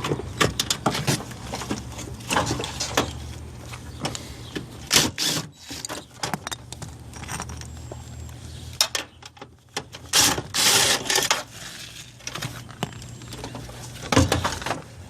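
Metal clicks, clinks and scrapes of a nut driver on a flexible extension working 5/16 screws out of an air conditioner condenser unit, with a low hum underneath.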